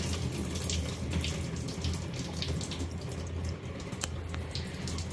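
Engine coolant trickling and splashing out of the opened thermostat housing into a catch jug, over a steady low hum. A single sharp click about four seconds in.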